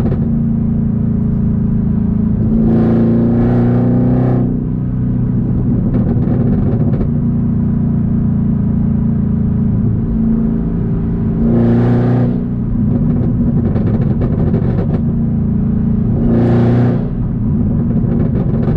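Supercharged 6.2 L V8 of a 2022 Camaro ZL1 through an H-pipe catback exhaust, heard from inside the cabin while driving: a steady low engine note, with three short bursts of acceleration, about three seconds in, near twelve seconds and near seventeen seconds, each falling back as the throttle lifts.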